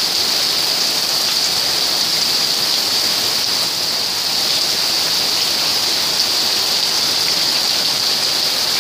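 Heavy hail and rain falling onto flooded ground, a dense, steady hiss.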